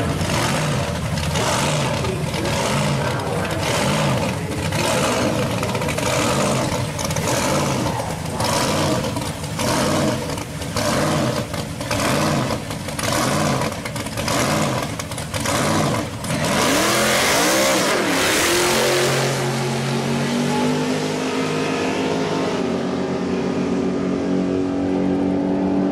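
Blown V8 of a first-generation Camaro drag car revved in quick repeated blips at the starting line, then a hard launch about two-thirds of the way through. A second drag car runs alongside, both engines at full throttle, their notes climbing as they pull away down the strip.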